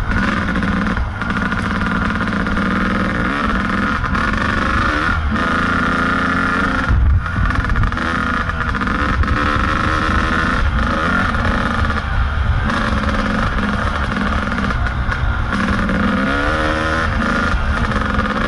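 Kawasaki KDX220's single-cylinder two-stroke engine under riding load, revs rising and falling repeatedly as the throttle is worked. About seven seconds in there is a loud, short thump.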